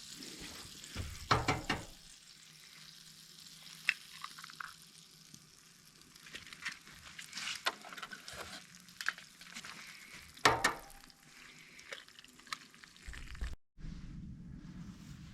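Potatoes frying in a pan: a steady sizzle, with the clink and scrape of a utensil stirring them now and then.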